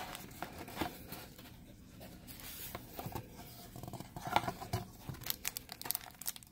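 Cardboard book mailer being handled and opened by hand: flaps rustling and scraping, with short crackles and clicks as the comics inside are slid out. The sharpest snap comes about four and a half seconds in, and a run of quick clicks follows toward the end.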